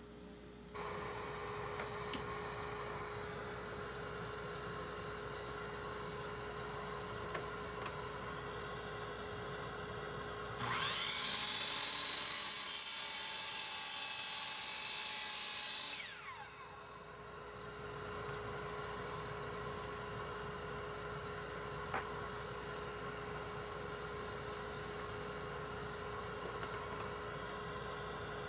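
Kobalt sliding dual-bevel miter saw cutting a wood block: about ten seconds in the motor spins up with a rising whine, the blade cuts for about five seconds, then the motor is let go and spins down with a falling whine. A steady machine hum with one held tone runs underneath throughout.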